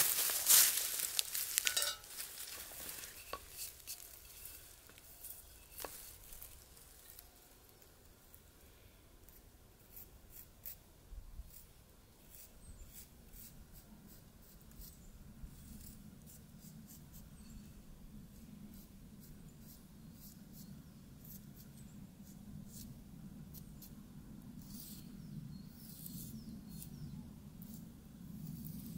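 Knife carving a split wooden spoon blank: short, faint shaving strokes at irregular intervals. It opens with about two seconds of loud crunching and knocking on dry leaves and wood, and a low steady hum comes in about halfway.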